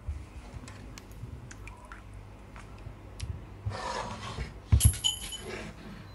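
Kitchen handling sounds from a plastic bowl of peeled potatoes in water being moved and set down on the worktop: light clicks, a short sloshing rustle, then two loud knocks with a brief ringing about five seconds in.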